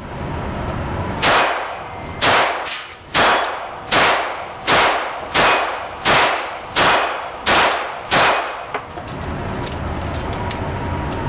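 Handgun fired about ten times in a steady string, a little under a second between shots, each shot with a short ringing tail.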